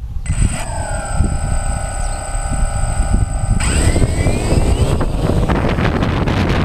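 DJI Phantom quadcopter's motors and propellers whining steadily, then rising in pitch a little after three seconds in as the drone throttles up. Strong wind buffets the microphone throughout.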